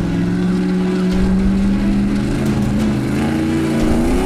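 Off-road race vehicle's engine running at steady revs, its pitch climbing near the end as it accelerates.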